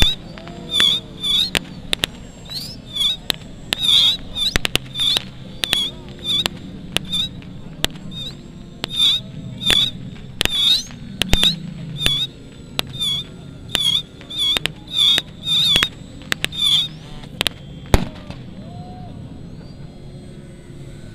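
Rapid, irregular series of sharp firecracker-like bangs from battle pyrotechnics, mixed with high squawking chirps repeating about twice a second, over the low drone of model aircraft engines. The bangs and chirps stop about 18 seconds in, leaving the engine drone.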